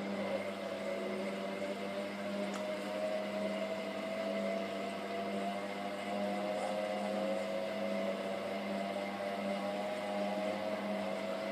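Candy GODF800 washing machine's drum motor running at the start of a spin cycle, its whine rising slowly in pitch as the drum gathers speed over a steady low hum.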